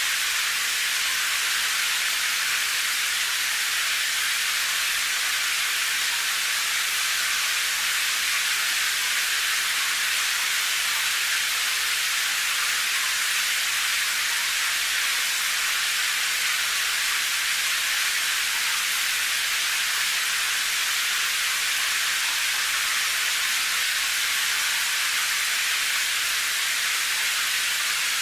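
Steady rain: an even, constant hiss, mostly high-pitched with little low rumble and no single drops or thunder standing out.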